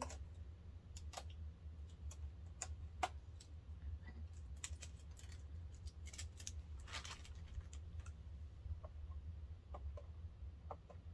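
Scattered light plastic clicks and taps as hands work at the needle and bobbin area of a Brother SE350 sewing and embroidery machine, opening its parts, over a steady low hum.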